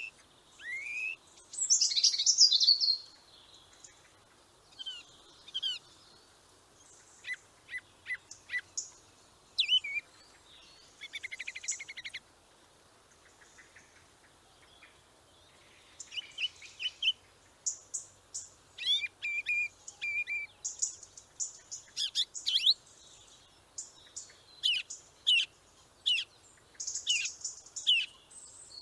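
Small birds chirping and calling, with many short high chirps, quick trills and a loud burst of song about two seconds in; the calling thins out for a few seconds near the middle and then turns dense and continuous.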